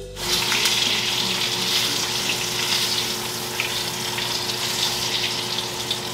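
Rabbit pieces frying in oil in a pan: a steady sizzling hiss with scattered small crackles, beginning a moment in, over a faint steady hum.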